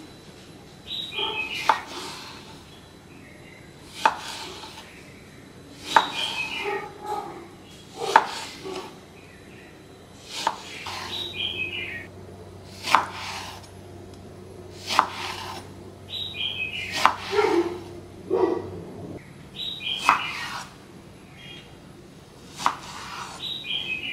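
Chef's knife slicing a halved orange on a wooden cutting board: about a dozen slow, even cuts, each a short cutting sound through the fruit ending in a sharp knock of the blade on the board, roughly one every two seconds.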